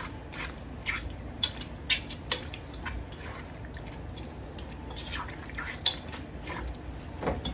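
Spoon knocking and scraping in a bowl with irregular light clicks as raw turkey chops are mixed with seasoning and oil.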